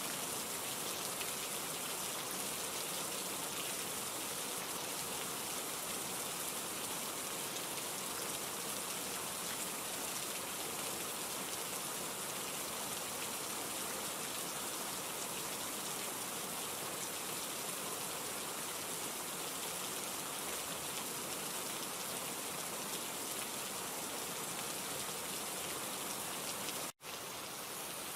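Steady rain falling, an even hiss of many drops. It cuts out completely for an instant about a second before the end, then carries on.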